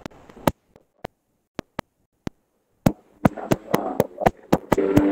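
A string of sharp clicks at irregular intervals, with the audio cutting out to dead silence for about two seconds in the middle. Faint background noise returns near the end, with clicks coming about five a second.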